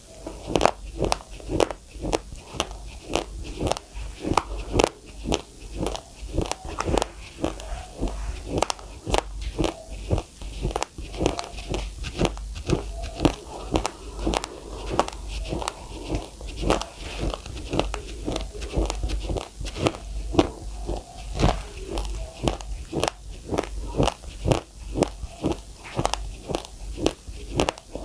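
A person chewing a mouthful of raw, uncooked white rice close to the microphone, the hard grains cracking between the teeth in a steady run of sharp crunches, two or three a second.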